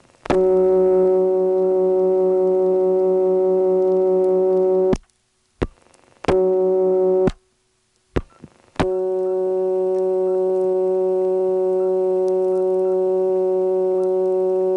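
Dial tone from a Stromberg-Carlson XY telephone office, picked up three times on a payphone line: a steady tone of many evenly spaced overtones, with sharp clicks and silence between the pickups. The first two dial tones carry a low ground hum from the first selector. The third, from about nine seconds in, is clear and keeps going, with faint squealing noises on the line.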